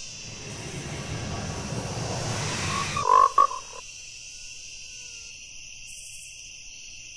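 A frog croaks once, short and loud, about three seconds in, right after a rush of noise that builds up and cuts off. A steady high insect chirring runs underneath.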